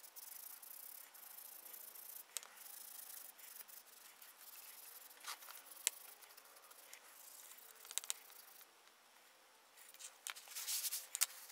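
Toothbrush scrubbing a brass model locomotive's tender deck: a soft, scratchy rubbing, with a few sharp taps and a louder stretch of brushing near the end. It is the sound of tarnish being scrubbed off the brass with a cleaner paste.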